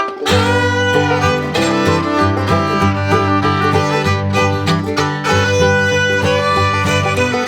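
Instrumental background music led by a fiddle, with notes held over a bass line that moves from note to note.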